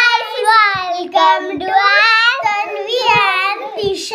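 Young children singing in high, sing-song voices, in short phrases with brief breaks between them.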